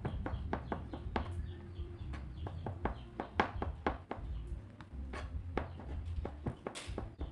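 A kitchen knife slicing hotdog sausages on a plastic cutting board: the blade knocks against the board in short, sharp taps, unevenly, about three or four times a second, over a steady low hum.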